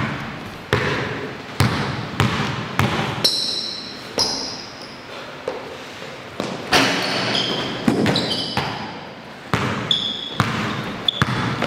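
Basketball bouncing on a hard court during one-on-one play, about a dozen irregularly spaced bounces with a short echo, mixed with brief high squeaks of sneakers on the court.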